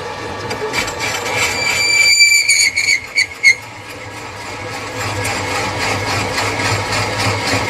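Metal lathe cutting steel, with a high pitched squeal from the cutting tool about a second and a half in that breaks off in a few short stutters, then the lathe running on with a steady hum.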